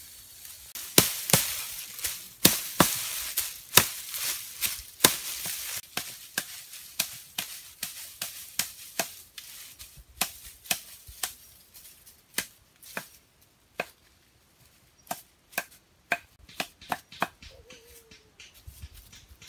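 Dry grass thatch and twigs rustling and crackling as a thatched roof is handled, with many sharp irregular snaps and clicks; the rustle is thickest in the first half and the snaps grow sparser later.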